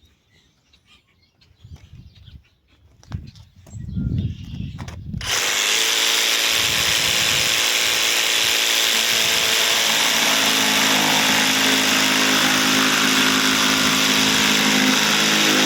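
A few handling knocks, then about five seconds in a Ryobi brushless jigsaw (PBLJS01) on a 4 Ah HP battery starts and runs steadily at full speed, sawing through wood.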